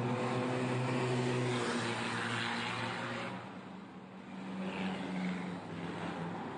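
Pre-war racing cars' engines passing close one after another on a street circuit. The engine note drops in pitch about two seconds in as a car goes by, the sound dips briefly, and another car's engine rises about five seconds in.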